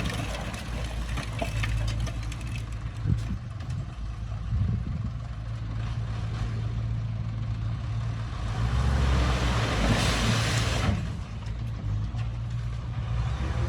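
Diesel engine of heavy earthmoving equipment running steadily, its low hum changing pitch about two thirds of the way through. A short burst of hiss, about a second long, comes near the end.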